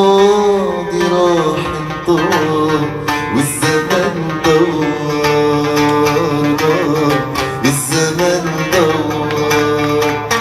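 Middle Eastern style song: a voice holds a wavering sung note for about the first two seconds, then an instrumental passage of plucked strings over hand-drum percussion carries on.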